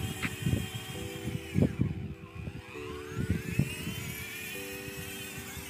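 Small electric motors of a battery-powered ride-on toy jeep whining as it drives, the whine sliding up and down in pitch with speed. Several dull low thumps come through, the loudest about a second and a half in.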